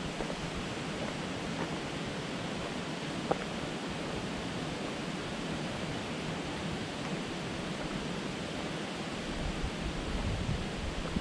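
Steady rushing outdoor noise, even and unbroken, with a faint click about three seconds in.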